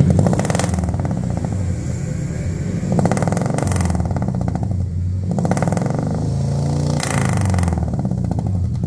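Suzuki New Carry pickup's 1.5-litre four-cylinder engine idling through an aftermarket header and full-system dual monel exhaust. The throttle is blipped about four times: near the start, around three seconds in, around five and a half seconds, and around seven seconds. Each blip rises and falls back to idle.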